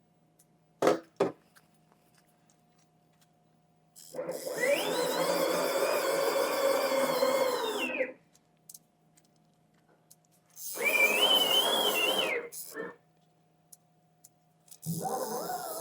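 CNC router's axis drive motors whining as the machine is jogged with a hand wheel. There are three separate moves, each rising in pitch as it speeds up, holding, then falling as it slows. Two light clicks come about a second in.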